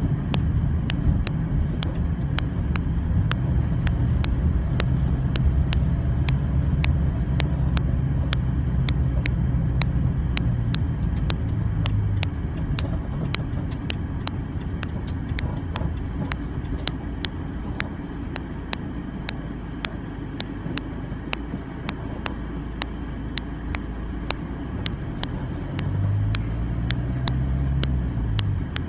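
Car engine and road rumble heard from inside the cabin, low and steady, easing off after about twelve seconds and swelling again near the end. Sharp clicks come about twice a second throughout.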